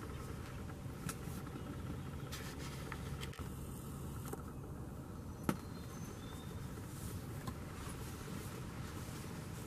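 Steady low background rumble with a few faint ticks and one sharp click about halfway through.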